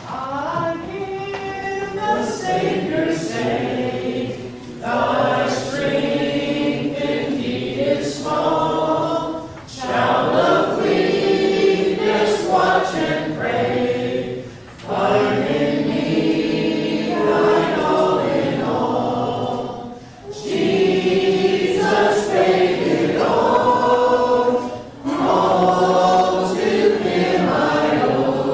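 Congregation singing the invitation hymn a cappella, without instruments, led by a song leader. The singing goes in phrases of about five seconds, with a short breath between lines.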